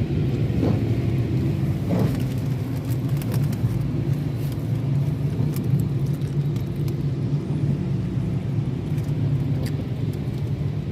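Steady low rumble of a car heard from inside the cabin, with rain on the car's body and windows and a few faint scattered ticks.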